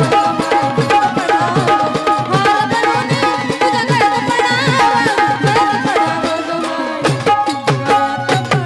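Live Indian folk music: a hand drum plays a fast, steady rhythm under a held keyboard melody.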